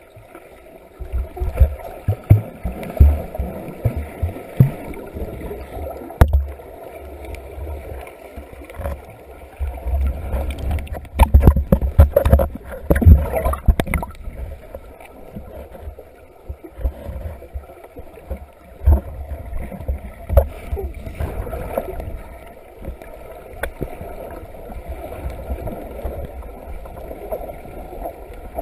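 Muffled underwater sound from inside a waterproof camera housing: water sloshing and gurgling against the case, with irregular low thumps and knocks. It gets busiest in the middle, as the camera breaks the surface.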